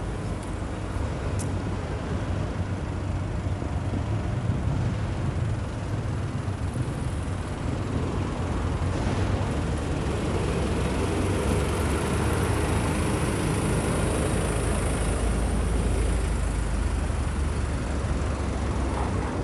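Street ambience dominated by road traffic: a steady low rumble of passing vehicles that swells through the middle and second half as vehicles go by close.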